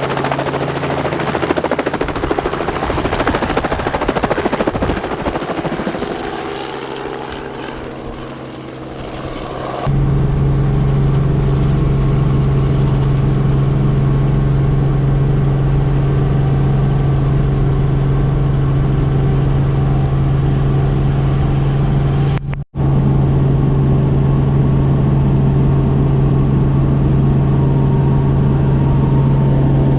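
Helicopter rotor chop and engine noise, loud and busy, easing off over the first several seconds. About a third of the way in it switches abruptly to a steady, even helicopter drone with a strong low hum, which cuts out for an instant about two-thirds of the way through.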